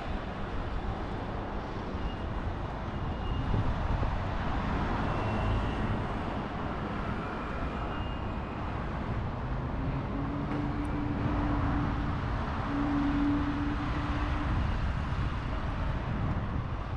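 City street traffic: steady road noise of cars passing, with a held tone from about ten seconds in that lasts some four seconds.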